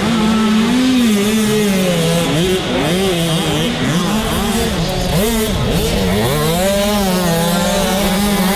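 Dirt bike engines racing on a motocross track, their pitch rising and falling over and over as the riders open and close the throttle; more than one engine can be picked out at once.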